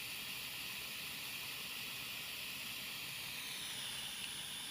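Steady hiss of a Dremel Versatip 2000 butane soldering iron burning its gas while heating the work.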